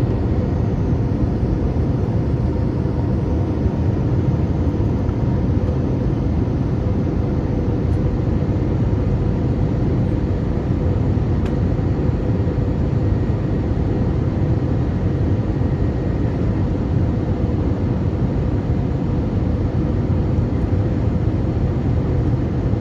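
Steady cabin roar inside an Airbus A321 in flight: engine and airflow noise, mostly deep, with a few faint steady tones and no change.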